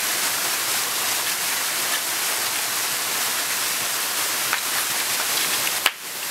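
Steady rush of falling water from a waterfall. Near the end comes one sharp hand clap of a Shinto prayer.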